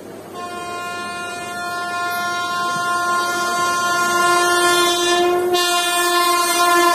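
WAP-7 electric locomotive's horn sounding one long blast as it approaches, starting a moment in and growing steadily louder, with a brief dip about five and a half seconds in.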